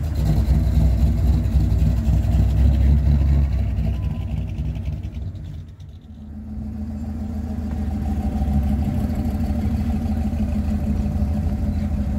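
Engines of two classic Chevrolet Advance Design pickup trucks rolling past at low speed, one after the other. The first fades away about five seconds in, then the second grows louder as it approaches and passes.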